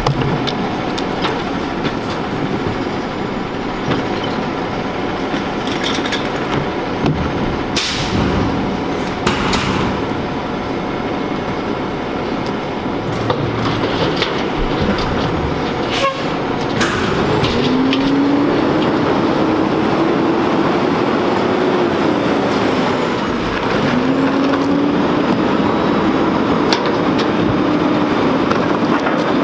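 Rear-loader garbage truck's diesel engine running, with carts knocking against the steel hopper a few times. About halfway through, the engine rises in pitch and holds, then drops, and does so again near the end, as it speeds up to drive the hydraulic packer.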